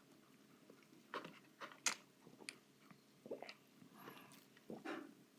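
A person chewing fast food close to the microphone: faint, irregular crunches and wet mouth clicks, about one to three a second.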